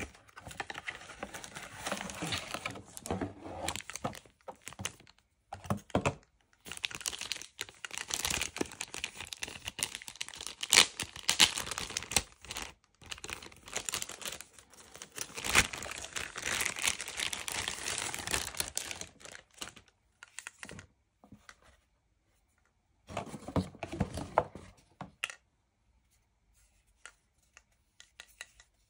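Cardboard packaging being opened and handled: rustling, scraping and tearing of paperboard in bursts that stop about 20 seconds in, with one more short burst a few seconds later and then only faint clicks.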